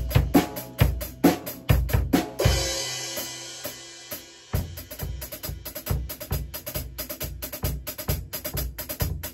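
Yamaha acoustic drum kit played in practice: kick and snare strokes, then a cymbal struck about two and a half seconds in and left ringing out for about two seconds. A steady, even beat with bright cymbal ticks starts up again near the middle.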